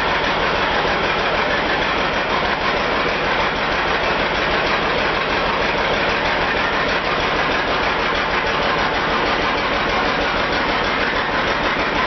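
Sawmill machinery running: a steady, even mechanical noise that holds at one level throughout.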